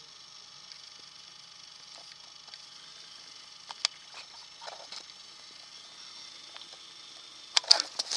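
Handheld camcorder noise: a faint steady hiss with a few sharp clicks and knocks from the camera being handled, and a cluster of louder ones near the end.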